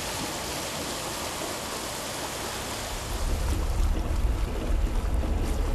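Water rushing past a sailing yacht's hull as a steady hiss. About three seconds in, a low wind rumble on the microphone joins and the sound grows louder.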